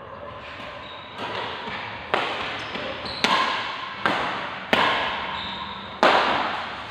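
Badminton rackets striking a shuttlecock in a fast doubles rally: six sharp hits, roughly one a second, each ringing on in the echo of a large hall.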